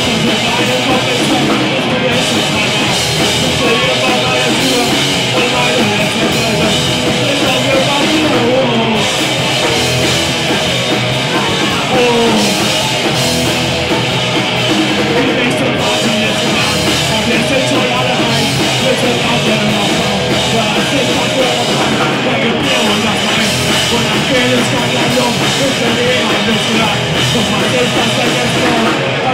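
Rock band playing live on electric guitars, bass and drum kit, loud and steady throughout.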